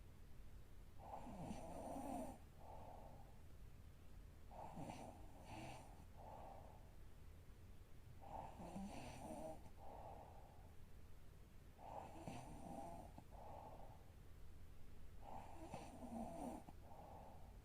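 A woman snoring softly in her sleep, five snores about three and a half seconds apart. Each snore comes in two parts, a longer one followed by a shorter one.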